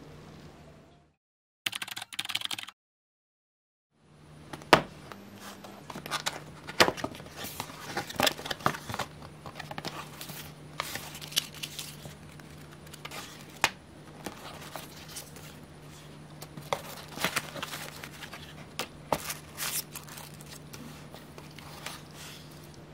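Hands unpacking a small cardboard box: irregular clicks, taps and paper rustling as the box flaps are handled and a paper instruction leaflet is leafed through, over a steady low hum.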